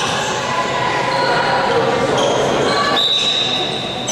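Handball match play in a sports hall: the ball bouncing on the court, short high squeaks scattered throughout, and players' voices echoing in the hall.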